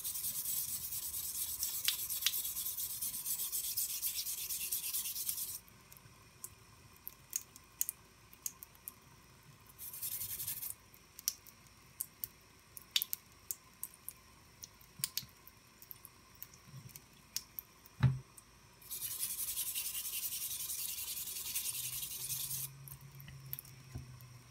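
A stiff bristle brush scrubbing a rusty knife blade under a thin stream of tap water in a sink. The scrubbing comes in three spells: about five seconds at the start, a short one about ten seconds in, and a few seconds more near the end. Between them there are only small drips and clicks.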